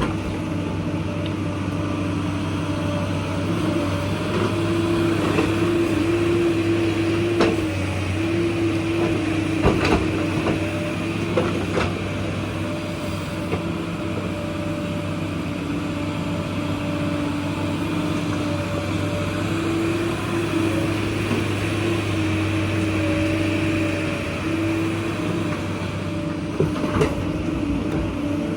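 Excavator's diesel engine running steadily under working load, with a few sharp knocks about a quarter, a third and near the end of the way through.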